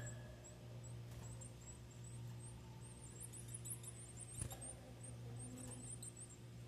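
Blue-black grassquit (tiziu) chicks cheeping: rapid, very high, thin peeps, thickest about halfway through, over a steady low hum.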